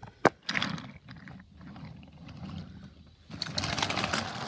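Toy train cars rolling along wooden toy train track, with a sharp click just after the start. A rattling roll follows, then a quieter spell, and a louder stretch of rolling noise over a low hum in the last second or so.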